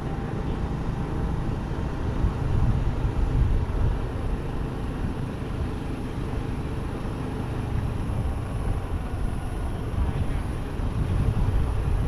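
Steady low rumble of a road vehicle's engine and tyres heard from on board while driving along a narrow road, swelling slightly a few seconds in and again near the end.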